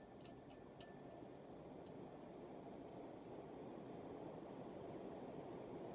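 Lasko ceiling fan spinning up on high speed: a faint, steady whoosh that slowly grows louder, with a few sharp clicks in the first second.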